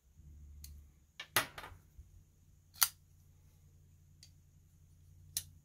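A-TAC Phantom frame-lock flipper knife being flipped open and closed by hand: a series of sharp metallic clicks as the blade snaps out and locks and is snapped shut, the loudest about a second and a half in, near three seconds and near the end. It is deploying freely after its pivot screws were adjusted.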